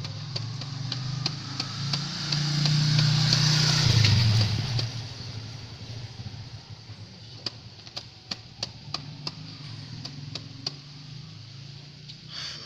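A motorcycle engine passing by, growing louder over the first few seconds, loudest about three to four seconds in, then fading away. Sharp small clicks throughout from the plant pots and polybags being handled.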